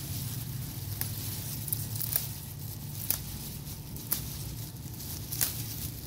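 Lemongrass leaves rustling as they are picked by hand from the clump, with a handful of sharp snaps and tears about a second apart. A steady low hum runs underneath.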